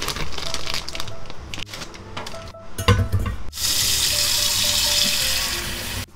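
A plastic bag crinkling as a frozen block of peppercorns is shaken out, a knock about three seconds in, then a kitchen tap running steadily onto the ice in a stainless steel bowl, stopping just before the end.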